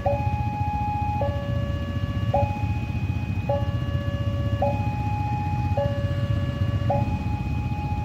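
Electronic warning alarm of a railway level crossing, sounding a steady two-tone call that switches between a higher and a lower pitch about every second: the signal that a train is approaching. Underneath is the low rumble of motorcycle engines idling at the crossing.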